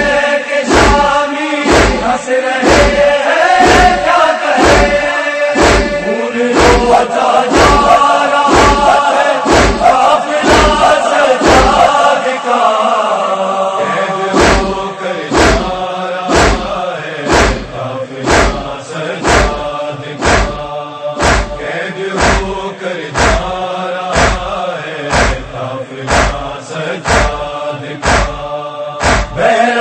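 Male voices chanting a noha, an Urdu mourning lament, over a steady heavy beat of nearly two strokes a second. The beat drops out briefly near the middle.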